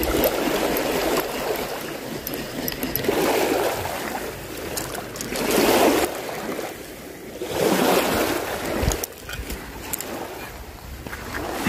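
Small waves washing onto the shore, the surf swelling and falling back every two to three seconds.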